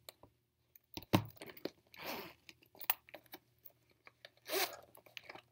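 Zipper on a leather case being pulled open in a few short rasps, with small clicks and one sharp knock about a second in as the case is handled.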